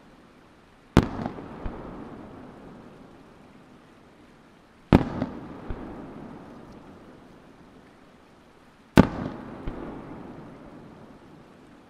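Aerial firework shells bursting one at a time, a sharp bang about every four seconds, three in all. Each bang is followed by a few smaller cracks and a long fading echo off the surrounding mountains.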